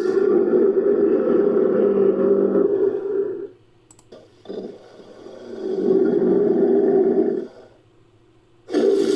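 Designed creature roars for a Dakosaurus, blended from tylosaurus and crocodilian sounds: two long, low roars of about three seconds each, with a short click between them. A third roar starts near the end.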